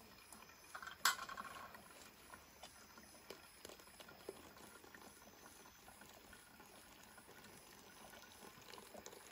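Hot water poured slowly from a kettle into a coffee filter cone, a faint steady trickle. There is one sharp knock about a second in.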